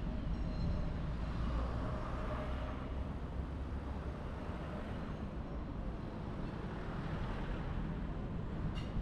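Steady low road and tyre rumble from a car driving along, with a short click near the end.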